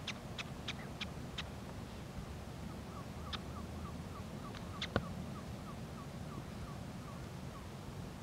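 Birds calling: a quick run of sharp, high calls that stops about a second and a half in, then a steady series of short, lower notes, about three a second. A single sharp tap about five seconds in is the loudest sound.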